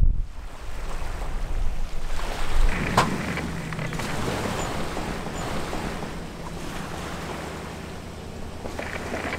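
Choppy lake water splashing against a bass boat's hull, with wind buffeting the microphone. About three seconds in there is a single knock, then an engine runs steadily at idle with water splashing as the bass boat is hauled out on its trailer.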